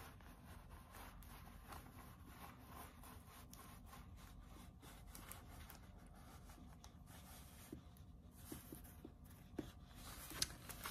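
Near silence, with faint rustling and rubbing from a plastic-covered diamond painting canvas being handled, and a few light clicks near the end.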